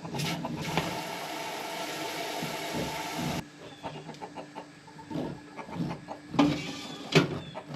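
Water running into a pot for about three seconds, then cut off suddenly, followed by a few light knocks of kitchenware.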